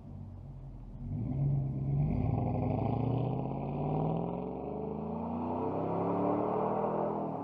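Pickup truck's V8 exhaust under hard acceleration while the truck pulls away: the engine note climbs in pitch and drops back at gear changes about two and four and a half seconds in, then climbs again.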